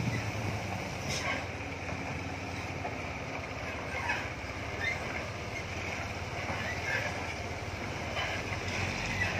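Diesel engine of a heavily loaded self-loader truck running steadily as it drives slowly along a dirt road.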